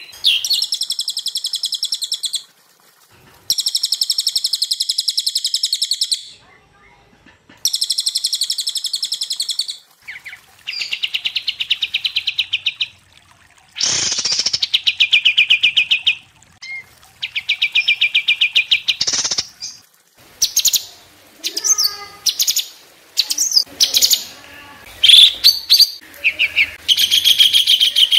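Songbirds (cililin, kapas tembak and cucak cungkok) singing loud, fast trills of rapidly repeated high notes in bursts of about two seconds, separated by brief pauses. The last third breaks into shorter, more varied chirps and whistles.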